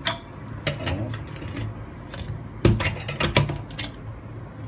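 Stainless-steel kettle and its lid clinking and clattering as the lid is fitted and the kettle is handled in a steel sink: a string of sharp metal clicks and knocks, the loudest a little under three seconds in.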